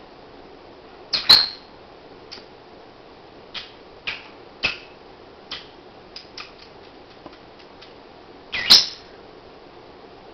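Black-masked lovebird snoring in its sleep: short, high squeaks and clicks at irregular intervals, two of them louder, about a second in and again near the end.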